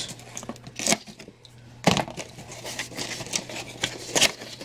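Cardboard box being handled and its flaps pulled open: scattered scrapes and knocks, with one sharper knock about two seconds in.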